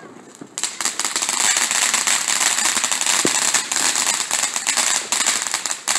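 A ground firework crackling: a dense, continuous rattle of rapid small pops that starts suddenly about half a second in and keeps going.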